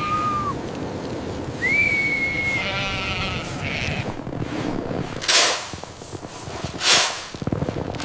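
Two held whistled notes, the second higher and opening with a quick rise, then a sheep bleating once about three seconds in. Two short, loud rushing noises follow, about a second and a half apart.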